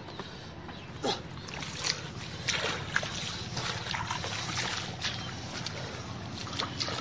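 Irregular splashing and trickling of shallow muddy water as a person wades barefoot through a flooded field and handles catfish in a plastic tub.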